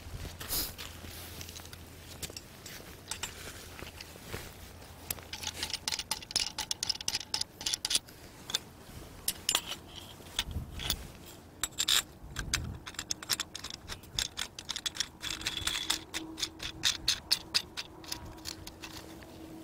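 Metal parts of a multi-rod fishing rod holder frame clicking, rattling and scraping together as it is assembled: quick irregular runs of light metallic clicks.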